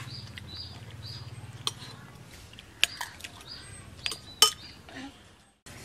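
Metal spoons clinking against ceramic bowls and plates during a meal: a few scattered sharp clinks, the loudest about four and a half seconds in.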